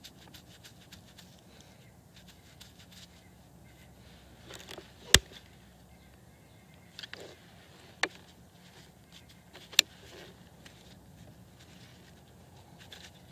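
Thin plastic water bottle crackling as it is handled and tipped to pour water, with three sharp snaps a few seconds apart, the first the loudest, and lighter crackles between.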